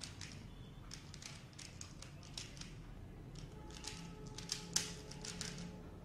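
Dayan ZhanChi 3x3 speedcube being turned rapidly, its plastic layers clicking in quick runs of turns, busiest and loudest in the second half.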